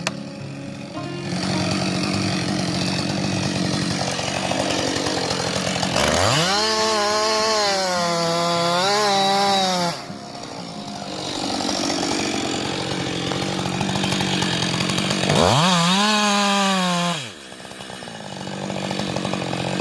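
Chainsaw engine revved to high speed twice. The first rev lasts about four seconds, with the pitch wavering as it works before it cuts off. The second, near the end, lasts under two seconds and drops away. Between the revs there is a steady lower-pitched running sound.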